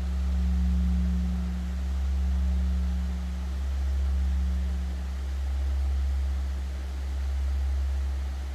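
Large bronze Buddhist temple bell (beomjong) ringing on after a strike: a deep, steady hum with a fainter higher tone above it, swelling and fading in slow, even waves about every second and a half to two seconds. The bell is rung to call the dawn service.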